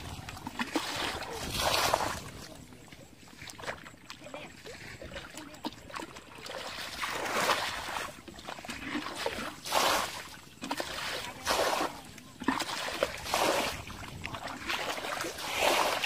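Muddy water splashing and sloshing as a cut-off plastic jug scoops it from a shallow puddle and flings it out, a loud splash every second or two. The puddle is being bailed dry to get at the fish in it.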